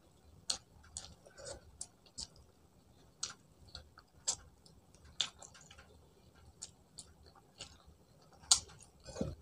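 Close-up eating sounds: a mouth chewing food with irregular sharp wet clicks and lip smacks, roughly one or two a second, with a louder click near the end.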